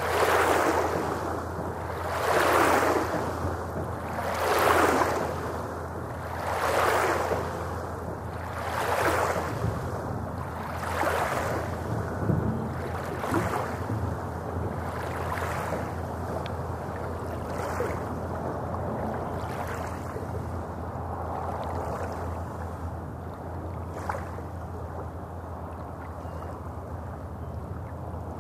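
Small lake waves breaking and washing onto a pebble shore in a rhythmic surge about every two seconds. The surges grow weaker and less distinct in the second half.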